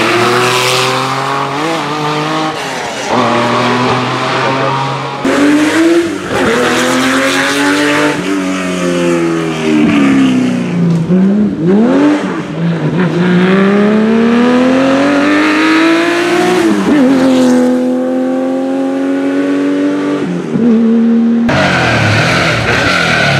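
Air-cooled flat-six engines of classic Porsche 911 rally cars, revving hard one car after another. The pitch climbs as each car accelerates and drops with quick blips as it shifts down. The sound switches abruptly from car to car several times.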